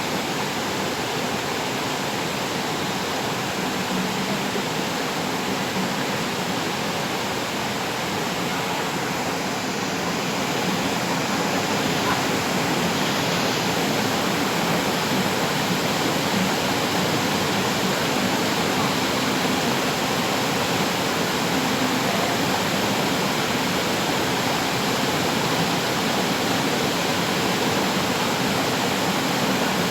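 River water rushing and splashing in a steady, even wash, a little louder from about ten seconds in.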